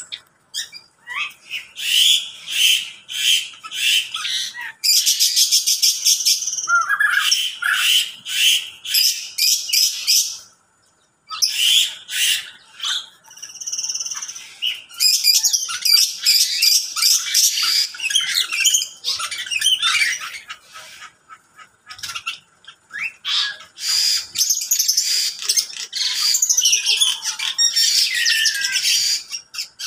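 A mixed aviary flock of lovebirds, mynas, parakeets and other small cage birds calling and chattering together, high chirps in rapid runs overlapping one another, with a brief lull about ten seconds in.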